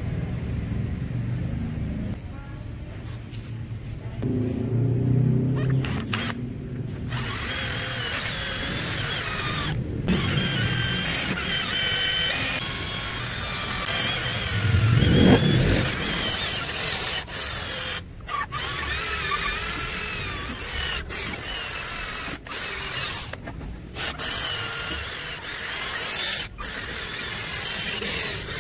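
Cordless drill spinning a foam polishing pad against a helmet's painted shell to work in cutting compound. The motor whine wavers in pitch, with several brief stops.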